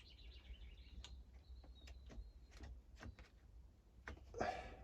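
Faint, scattered clicks and taps of hedge-trimmer parts being handled and fitted back together during reassembly, with a louder brief rustle near the end.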